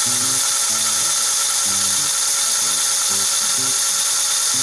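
Cordless drill running at a steady, slow speed with a constant whine, turning a line spool on a bolt arbor to wind braided fishing line off a reel spool.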